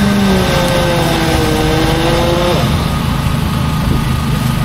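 An engine running steadily with a low, dense rumble, and a pitched hum over it that wavers and stops about two and a half seconds in.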